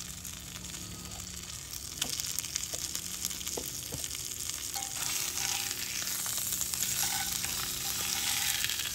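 Seasoned steak sizzling in oil in a cast-iron skillet on a camp stove, with a few faint clicks, and the sizzle a little louder from about five seconds in.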